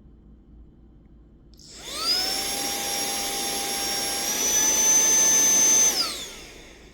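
Small cordless handheld vacuum cleaner (HL-107) switched on: its motor whine rises to speed, then steps up in pitch and loudness to its second speed. It is switched off near the end and winds down with falling pitch.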